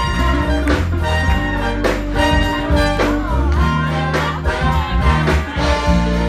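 Live go-go brass funk band playing: brass and saxophone lines over a heavy bass line and a steady drum beat.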